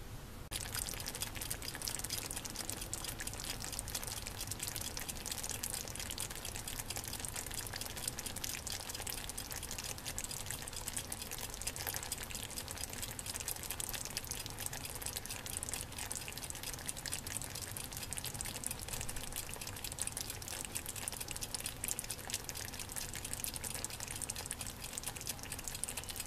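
Onion and sweet potato slices in olive oil and juices simmering in a frying pan on low heat: a steady fine sizzle and bubbling that gets louder about half a second in.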